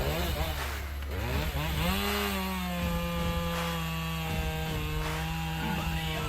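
Engine chainsaw running: revving up and down several times in the first two seconds, then held steady at high speed.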